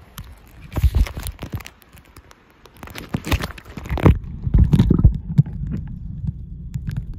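Phone being handled and pushed into a shallow river: a few knocks and scrapes in the first couple of seconds, then splashing as it goes under about three to four seconds in. After that the sound turns into the muffled low rumble and dull thuds of a microphone underwater.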